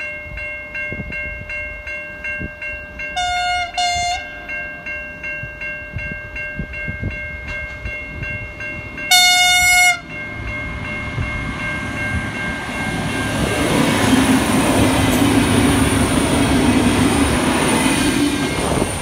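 Level-crossing bells ringing steadily as a V/Line VLocity diesel multiple unit approaches. Its horn gives two short toots about three seconds in and one longer, louder blast about nine seconds in. Then the train passes close by with a swelling rush of engine and wheel noise.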